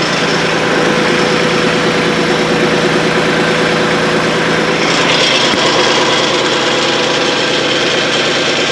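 LS XJ2025 compact tractor's diesel engine running steadily while the tractor is driven forward to pull away from the backhoe. About five seconds in, the sound shifts: a low hum drops away and the higher part of the engine sound grows brighter.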